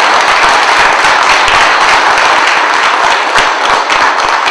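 Audience applauding: loud, dense clapping of many hands.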